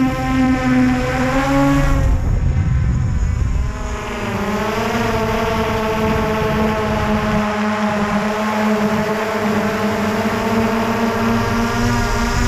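Multirotor drone's motors and propellers whining steadily in flight. About two seconds in the tone breaks into a rushing rumble for a couple of seconds, then returns at a slightly lower, wavering pitch.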